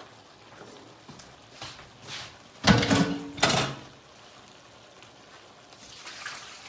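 Kitchenware being handled: two short clattering knocks with a brief ringing, just under three and about three and a half seconds in, amid faint handling noises.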